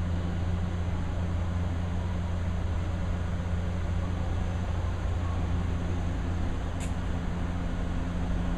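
A JR 383-series electric train standing at a platform, its onboard equipment giving a steady low hum over an even background rumble. A brief faint high chirp about seven seconds in.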